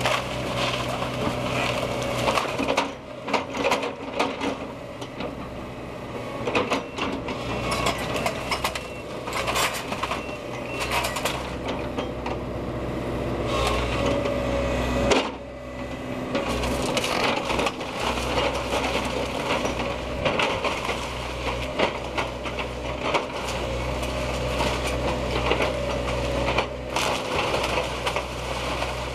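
Link-Belt hydraulic excavator running steadily while its bucket tears into a house, with repeated cracking and crunching of splintering wood and breaking debris.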